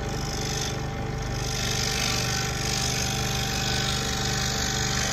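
Scroll saw running steadily, its blade moving rapidly up and down with a fast, even rhythm as it cuts through a thin wooden board.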